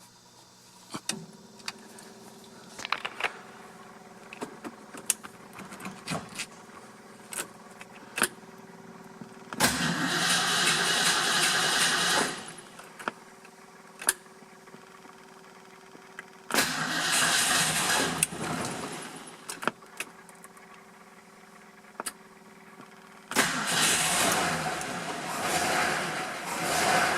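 Cold start of a 1978 Ford Mustang II King Cobra's carbureted 302 V8. An added electric fuel pump hums steadily after it is switched on. The engine is then cranked in three bursts, about ten, seventeen and twenty-three seconds in, and the last burst runs on, rising and falling in level. A few light clicks come before the first crank.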